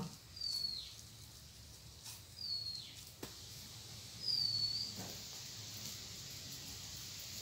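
A bird calling: three short, high whistled notes about two seconds apart, each with a slight dip in pitch. A few faint clicks come in between.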